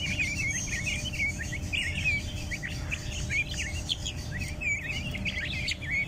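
Birds chirping busily, a rapid, overlapping run of short high chirps with no pause, over a steady low hum.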